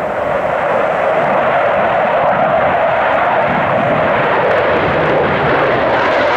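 Loud, steady jet engine noise from a twin-engine delta-canard fighter jet climbing steeply overhead in a display flight.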